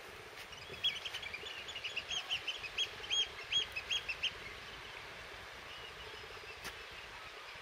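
A flock of shorebirds calling: a quick run of high, piping calls, about three or four a second, lasting some three seconds, over a steady background hiss.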